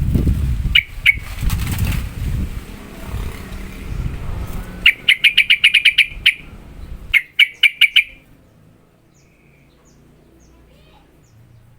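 Yellow-vented bulbul (trucukan) giving rapid-fire 'ropel' calls: fast runs of sharp, evenly repeated notes, about ten in a burst halfway through and four more shortly after, then faint chirps. A low rumble underlies the first part.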